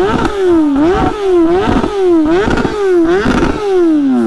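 Kawasaki ZX10R inline-four sport bike with an Akrapovic exhaust, revved in quick blips: about five sharp rises in engine pitch, each sinking back, before the revs drop away near the end.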